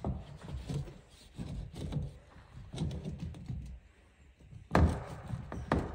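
Scattered knocks and thuds of hand work, irregular, with a cluster of light clicks midway and two sharp, loud knocks near the end.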